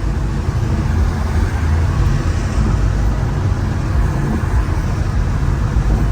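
Steady drive noise of a BMW M5 Competition cruising on a wet highway: a low drone from its twin-turbo V8 and the tyres, with a hiss of water and rain over it.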